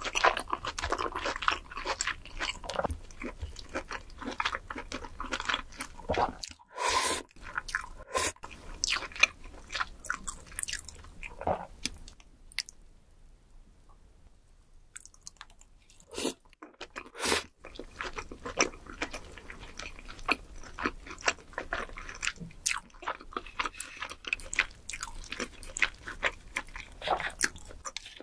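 Close-miked mouth sounds of someone eating butter-grilled lobster: dense wet chewing clicks and smacks. They drop to a quieter gap about halfway through, then the chewing picks up again.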